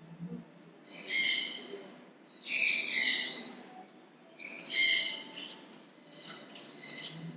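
A bird repeating a high-pitched call: several loud calls about a second apart, each lasting about half a second, with fainter short chirps near the end.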